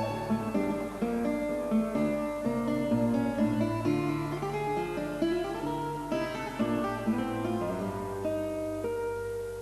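Background music played on acoustic guitar, plucked notes in a flowing melody, fading near the end.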